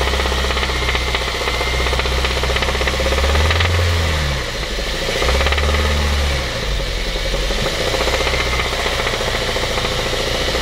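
Honda Civic Type R EP3's 2.0-litre four-cylinder engine running with a knock through the revs, blipped up and back down twice, about three and five seconds in. The knock is taken by the owner for a bottom-end fault.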